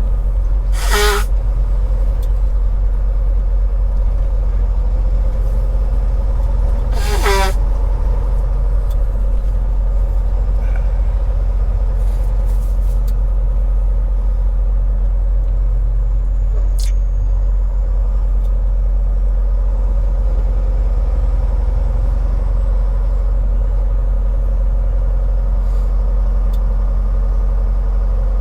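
Semi truck's diesel engine and road noise heard from inside the cab while driving, a steady low drone, with two brief louder sounds about a second in and about seven seconds in.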